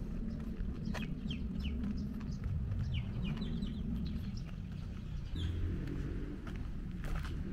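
Birds chirping: many short, quick chirps that slide downward, clustering about a second in and again around three seconds in, over a steady low rumble.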